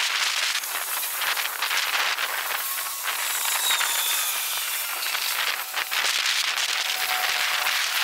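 Outdoor wind noise on the microphone, played back many times faster than normal: a steady high hiss with fine crackle, and a few faint thin tones sliding through.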